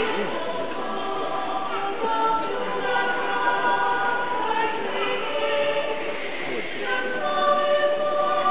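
A choir singing, holding long notes that change about every second.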